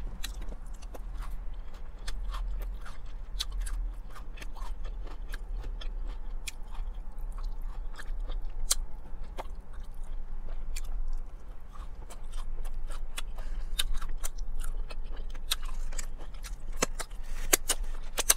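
Close-up mouth sounds of eating fried chicken and coleslaw: chewing and crunching with many short, sharp wet clicks and smacks, over a steady low hum.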